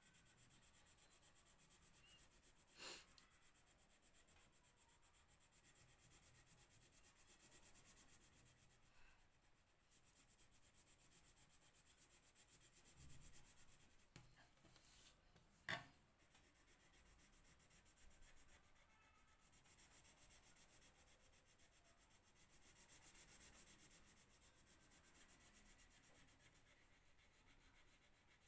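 Faint scratching of a colour pencil shading back and forth on paper, coming and going in stretches, with two small sharp clicks, about 3 and 16 seconds in.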